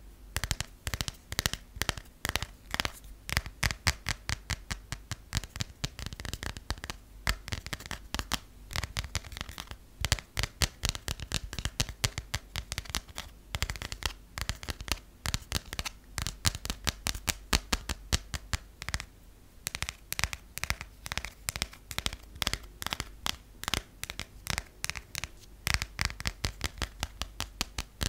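Long fingernails tapping quickly on a passport's cover, a fast, uneven run of crisp taps with a few brief pauses.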